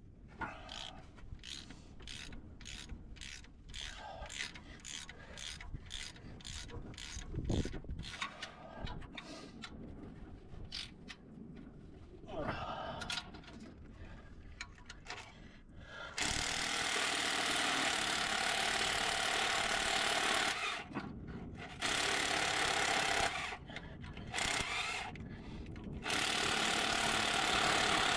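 Hand socket ratchet clicking in a steady rhythm of about two clicks a second as a fastener is turned. About halfway through a power tool takes over, running in four bursts of one to four seconds, which are the loudest part.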